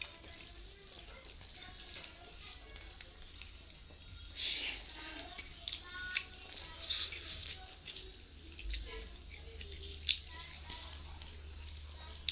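Fingers mixing boiled rice with bottle gourd curry on a steel plate: wet squishing with many small sticky clicks, and a longer wet smear about four and a half seconds in.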